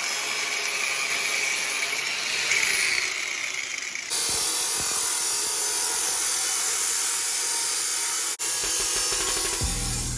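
An angle grinder with a cut-off wheel cuts a taped turbo feed line clamped in a vise. About four seconds in, this gives way to an abrasive cut-off saw running steadily as it cuts through a steel exhaust downpipe. The saw's sound breaks briefly near the end.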